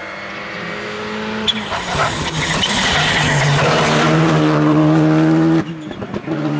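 Rally car engine running at steady high revs, getting louder as the car comes on. A loud hiss of tyres on the road swells over the middle seconds, then the sound drops off abruptly near the end.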